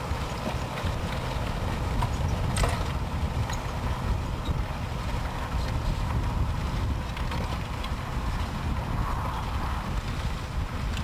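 New Holland T7.260 tractor's six-cylinder diesel running steadily while ploughing, heard as a low rumble under wind buffeting the microphone. A brief click about two and a half seconds in.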